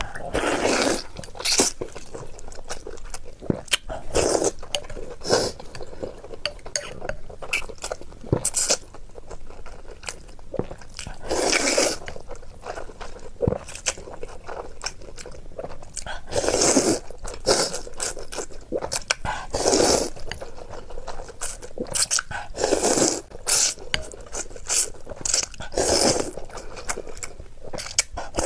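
Close-up eating sounds: wide noodles slurped from a spicy broth in loud rushes of about a second each, every few seconds, between wet chewing with many small clicks.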